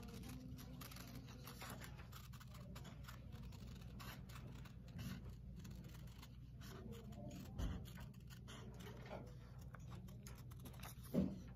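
Scissors cutting paper in many short, faint snips, working slowly around a paper cut-out.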